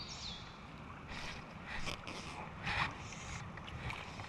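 Several short splashes and rustles as a small hooked fish is brought to hand on a fly line, over a steady outdoor hiss, with a short high chirp at the very start.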